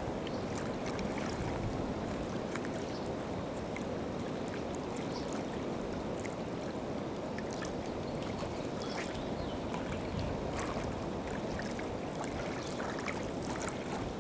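River water flowing, a steady rushing with scattered small trickles and splashes.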